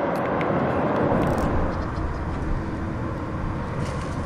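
Steady wind noise on the microphone, with faint splashing near the end as a hooked fish thrashes at the water's surface.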